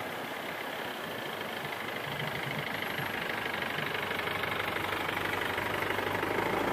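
A motor vehicle's engine running and growing gradually louder as it draws near, over a steady rushing noise.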